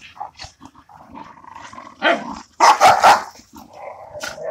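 Young American Bully dogs growling and barking as they play-fight in a group, with the loudest barks about two to three seconds in.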